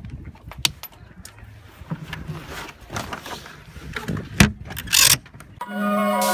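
Clicks and knocks of hardware being handled on a dinghy's hull, with two sharper knocks near the end. Marimba-like music starts just before the end.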